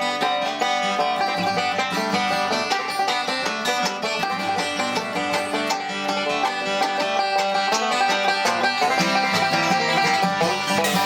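Background bluegrass-style music, led by a fast-picked banjo with guitar.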